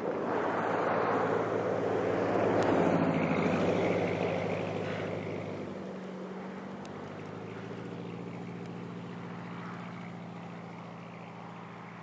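Vehicles driving on a snow-covered road: a rushing noise that swells to a peak about three seconds in and then fades, with a steady low engine hum underneath that slowly dies away.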